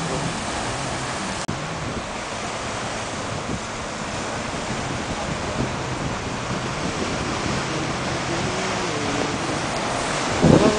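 Sea waves breaking and washing over shoreline rocks, a steady rushing surf, with wind buffeting the microphone.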